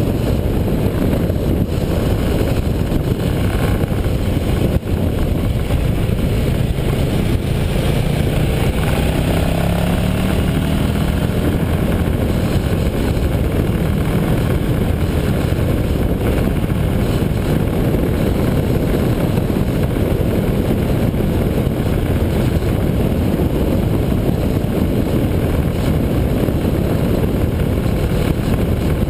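Steady wind rush on the microphone of a camera riding on a motorcycle at road speed, mixed with the bike's engine and tyre noise. A faint engine note rises in pitch about eight to eleven seconds in.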